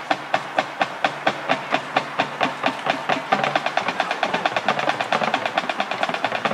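Marching band drumline keeping a steady tempo with sharp stick clicks, about three a second, growing busier with more clicks woven in between from about two seconds in.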